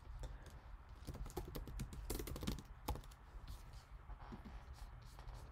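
Faint, irregular light clicks and taps.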